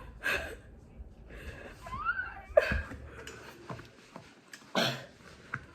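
A person breathing hard in short gasps and sniffs, with a brief rising whimper about two seconds in and a sharp click soon after: a reaction to the burn of very hot chicken wings.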